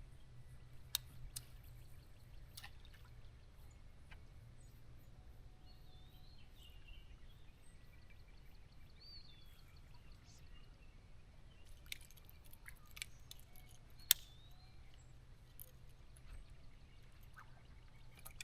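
Faint sounds on the water: scattered clicks and taps with light dripping, a few short chirps, and a low steady hum underneath.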